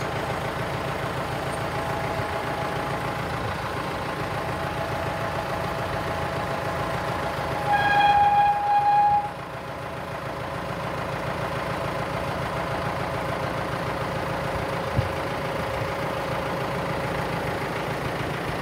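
Tractor diesel engine running steadily while the rear pallet fork mast is worked on the hydraulics. About eight seconds in, a loud steady high tone sounds over it for about a second and a half.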